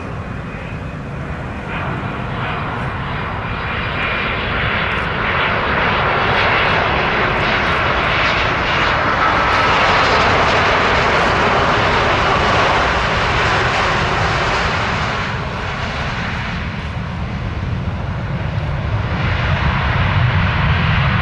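Air Canada Boeing 787 Dreamliner's GEnx turbofans on final approach: a steady jet whine and rush that swells as the airliner passes, peaks about halfway through and eases off. A deeper rumble then builds near the end as it touches down on the wet runway.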